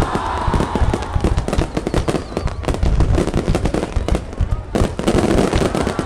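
Fireworks display going off: a rapid, continuous crackle of many small bursts over a low rumble of bangs.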